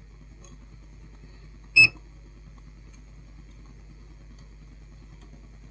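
Digital multimeter in diode mode giving one short, high beep about two seconds in, as its probes are put to the rectifier bridge. A faint steady low hum lies underneath.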